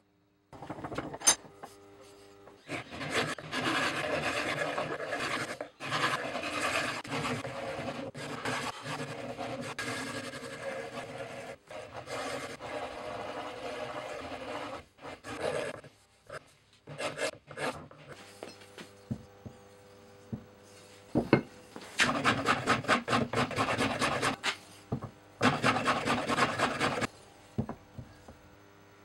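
Hand rasp working a wooden axe handle clamped in a vise, shaping it to fit the axe head's eye. The back-and-forth scraping strokes come in long runs with short pauses, and the strokes are quicker and evenly spaced in the later run.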